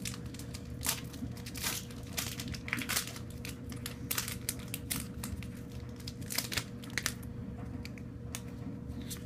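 Foil wrapper of a Pokémon card booster pack crinkling and tearing as it is opened by hand: a run of irregular crackles that thin out near the end.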